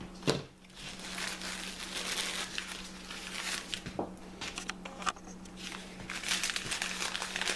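Newspaper wrapping crinkling and rustling as gun parts are unwrapped by hand, with a single sharp knock a moment after the start as a part is set down on the table.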